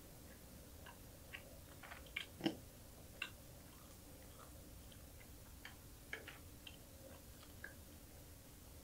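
Close-miked chewing of a mouthful of small anchovies: a scatter of faint crackles and clicks, with one louder crunch about two and a half seconds in.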